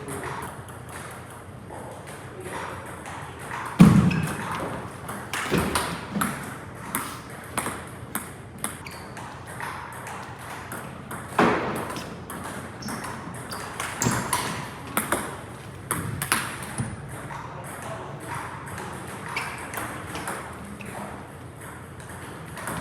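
Table tennis rally: the ball clicking off rackets and the table, about two hits a second at times, with a heavier thud about four seconds in.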